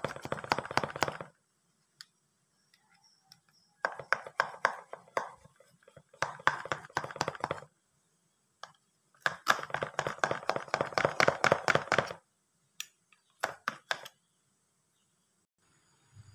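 Thin metal knife scraping and clicking around the inside of a round metal cake tin, loosening a steamed apem cake. It comes in five bursts of quick scraping clicks a second or two apart, the longest about three seconds.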